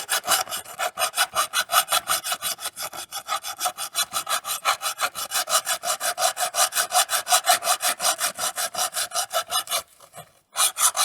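Rapid back-and-forth hand scrubbing on metal, about six strokes a second, cleaning rust and grime off a suspension bracket down to bare metal. The strokes stop about ten seconds in, then resume briefly for about a second.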